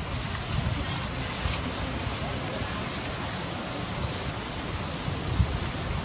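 Steady outdoor background noise: an even hiss with a fluttering low rumble of wind on the microphone. No distinct animal call or other event stands out.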